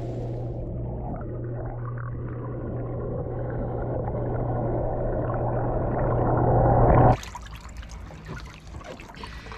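Hot tub water heard from underwater: muffled churning and bubbling over a steady low hum, slowly growing louder. About seven seconds in it cuts off abruptly to clearer, quieter trickling and splashing water.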